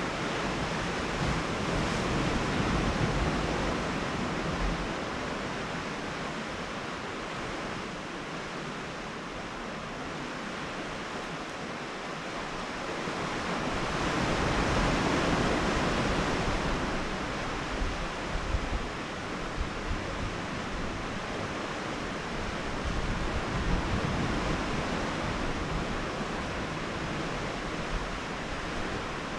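Sea surf washing against a rocky shore as a steady rushing noise, swelling louder twice, with low wind rumble on the microphone.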